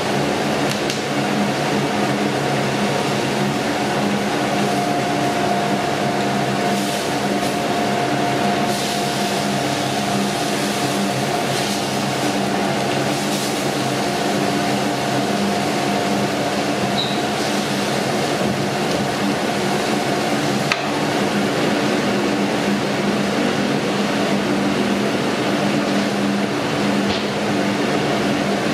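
Steady mechanical hum over a constant hiss, with a few faint clicks.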